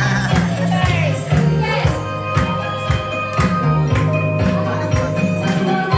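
Music with a steady beat, about two beats a second, over a strong bass line and a melody.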